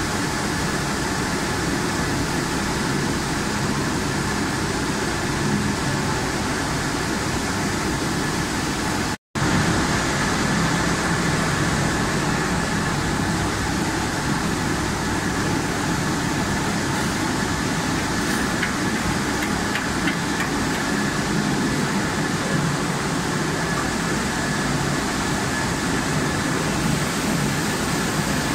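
Machinery of an automatic French fries production line running steadily, with a constant high-pitched whine over the din. The sound cuts out for an instant about nine seconds in.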